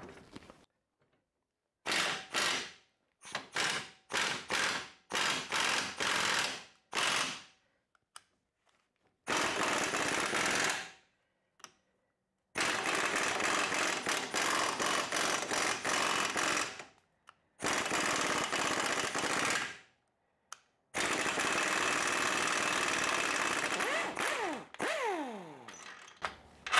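Impact wrench hammering on a rusted rear suspension bolt, first in several short bursts, then in four longer runs of a few seconds each, with a falling whine near the end. The bolt undoes and backs out rather than staying seized.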